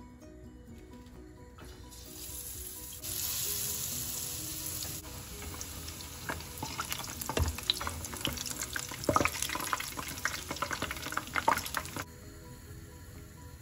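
Batter-coated potato bondas deep-frying in hot oil: a sizzling hiss that starts about two seconds in and grows louder, then turns to irregular crackling and popping before it stops suddenly near the end.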